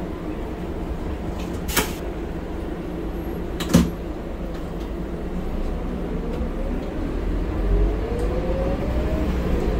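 Scania K230UB bus's diesel engine heard from inside the cabin, running steadily with two sharp knocks about two and four seconds in. From about six seconds the engine note rises and grows louder as the bus pulls away.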